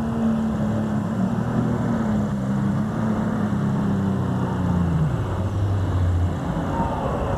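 Super stock diesel pulling tractor's multi-turbocharged engine running flat out under load as it hauls the weight sled down the track. Its steady tone drops sharply in pitch about five seconds in.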